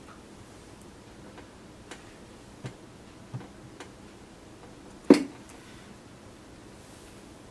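A few light, irregular clicks from a sculpting tool working a modeling-clay head, then one loud, short cough about five seconds in.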